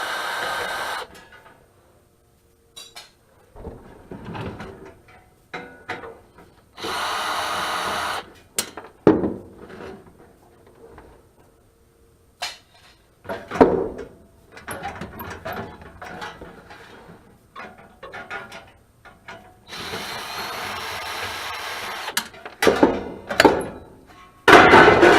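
Power drill run in several short steady bursts of one to two seconds, driving fasteners out of a dehumidifier during scrapping, with clicks and knocks of tools and sheet-metal parts handled between the bursts.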